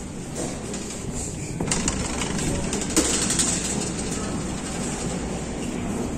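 Steady hum and hiss of a metro station entrance hall, with a few sharp knocks, the loudest about three seconds in.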